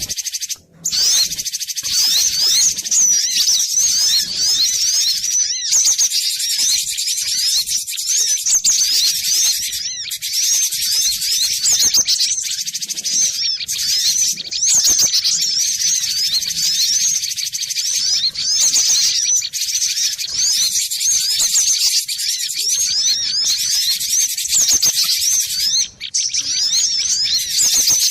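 Cinereous tit (glatik batu) singing: a fast, unbroken run of high, quick chirping notes.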